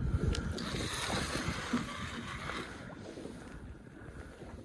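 Wind buffeting the microphone and water moving around a small boat at sea: an uneven rumbling noise that eases off toward the end.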